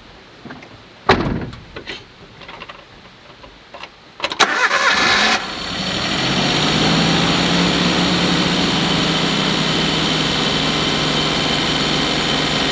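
A few knocks, then the Suzuki Jimny JA12's small three-cylinder engine cranks for about a second, catches and settles into a steady idle.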